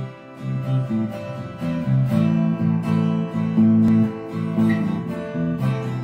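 Intro music played on acoustic guitar, a run of plucked notes.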